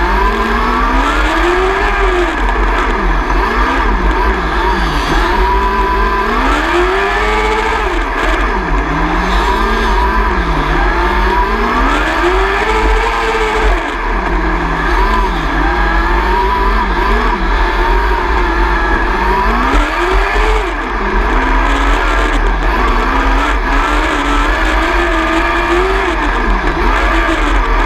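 600cc micro sprint car's motorcycle engine heard onboard, revving up and backing off every few seconds as the car laps a dirt oval, over a heavy low rumble.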